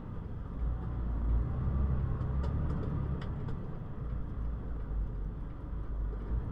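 Steady low rumble of a truck's engine and road noise inside the cab while driving, with a few faint ticks near the middle.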